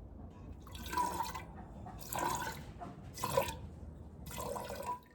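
Hand-milking a goat: four squirts of milk hitting the milk in the pail, about a second apart, each a short liquid hiss.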